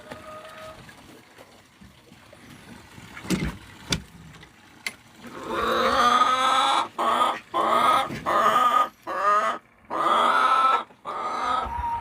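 A few light knocks, then about halfway in a chicken starts calling loudly in a run of drawn-out squawks, one after another with short breaks.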